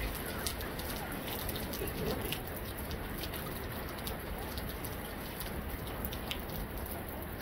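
Steady outdoor background noise at a football pitch, with many faint scattered ticks and a few faint distant voices from the players.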